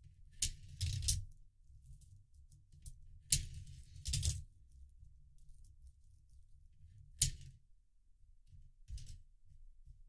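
Euro coins dropped one at a time into a 3D-printed plastic coin sorter: a sharp clink, then a short rattle as the coin runs down into its slot. This happens three times a few seconds apart, with a softer clink near the end.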